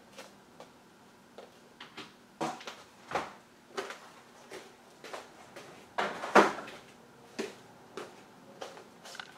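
Irregular clicks, knocks and short scrapes of small parts and tools being handled on a workbench, the loudest knock a little past six seconds in.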